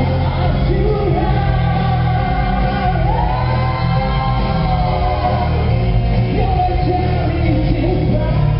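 Live rock band playing, with a vocalist singing long held notes over bass and guitar.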